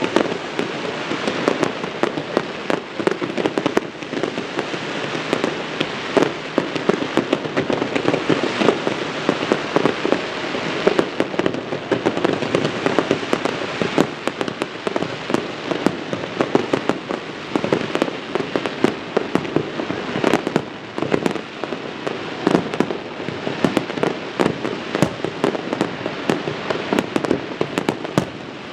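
Fireworks display going off in a continuous barrage: dense, overlapping bangs and crackles with no pause.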